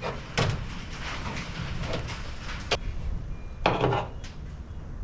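Knocks and clanks of a clamp being handled and repositioned on a truck's sheet-steel hood: a knock about half a second in, a sharp click a little past halfway, and a short rattling clatter near four seconds.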